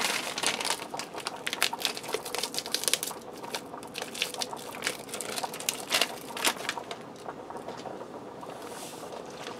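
Foil-lined seasoning packet crinkling as it is torn open and shaken out, a run of irregular sharp crackles, thickest in the first few seconds and again about six seconds in.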